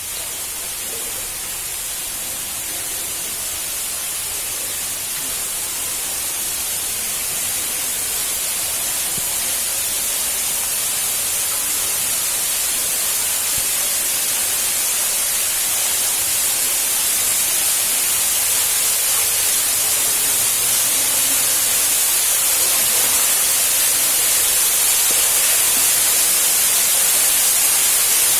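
Waterfall water rushing, a steady hiss that grows gradually louder.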